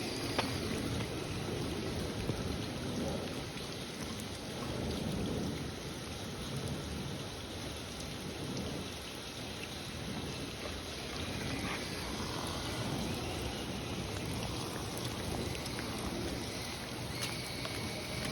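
Steady rain noise with a low rumble, the raindrops hitting the wet phone recording it. Near the end the small electric motor of a Traxxas TRX-4M RC crawler comes in with a rising whine.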